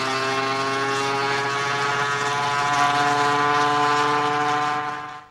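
Small moped engine running steadily under way, its pitch rising slowly. It cuts off suddenly at the very end.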